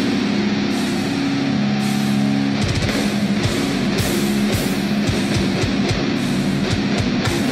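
Heavy metal music: electric guitar chords over rapid drumming.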